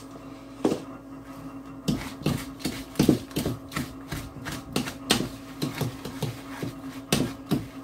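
Crumble topping being mixed by hand in a mixing bowl: irregular clicks and knocks against the bowl, a few a second, over a steady low hum.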